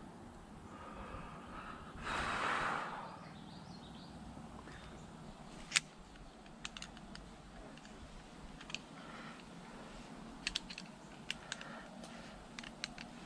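Scattered sharp clicks and light knocks of tree-climbing gear being handled: rope, metal hardware and a mechanical rope device. There is a short, louder rush of noise about two seconds in.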